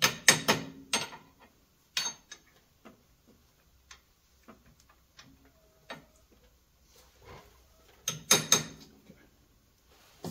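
Hand ratchet wrench clicking in short bursts of quick metallic clicks: one burst just after the start, another about eight seconds in, and a few faint clicks and taps between them. This is the work of taking off the tie rod.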